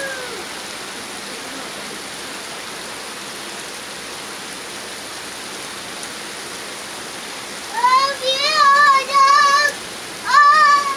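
Steady heavy rain pouring down. About eight seconds in, a high, wavering voice calls out for about two seconds, and again briefly near the end.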